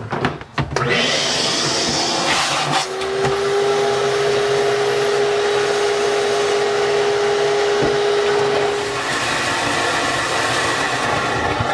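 Ridgid wet/dry shop vac switched on after a few clicks about a second in, then running steadily while its hose sucks up water from the bottom of a water softener's brine tank. A steady tone rides on the motor noise for several seconds in the middle.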